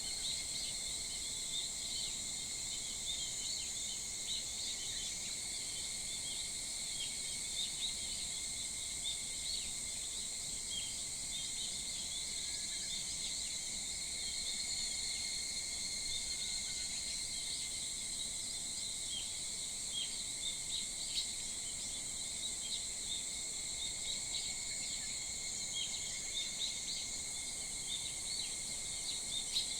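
A chorus of insects droning steadily at several high pitches, with many short bird chirps scattered over it.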